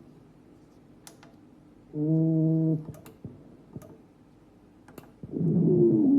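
Button clicks on a cardiopulmonary auscultation simulator, with a short buzzing electronic beep about two seconds in. A little after five seconds a louder wavering tone begins.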